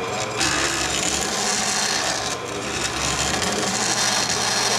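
Bandsaw blade cutting through an aluminum bracket over the steady hum of the saw's motor. A loud, high hiss of the cut starts about half a second in and eases briefly near the middle.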